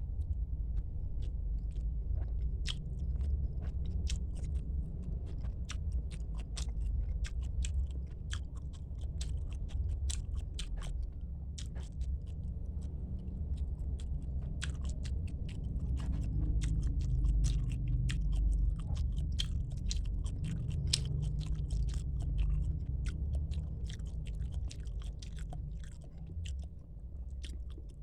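Close-miked chewing and biting of tilapia with rice and spinach soup: a dense, irregular run of small crunchy clicks over a steady low rumble.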